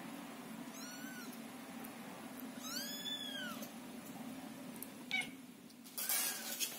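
Young Scottish fold and Scottish straight kittens meowing: high, thin calls that rise and fall in pitch, a short one about a second in, a louder one around three seconds, and another near the end over a burst of rustling.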